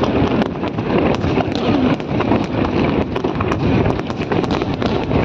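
Aerial fireworks bursting in a rapid, unbroken string of bangs and crackles.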